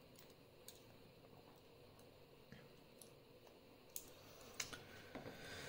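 Faint, irregular small clicks of lock parts being handled: pins and springs going back into a Euro lock cylinder during reassembly.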